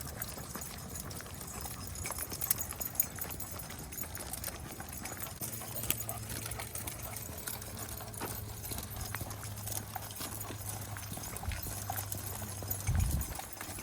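Footsteps and scattered small clicks as a person walks a pack of dogs, with a low steady hum through the second half and a brief thump near the end.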